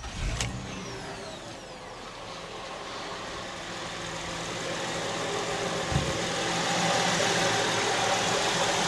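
2006 Honda Ridgeline's V6 engine idling steadily with its power steering fluid freshly topped up, the earlier whine no longer evident. It grows louder as it goes, with a brief low thump about six seconds in.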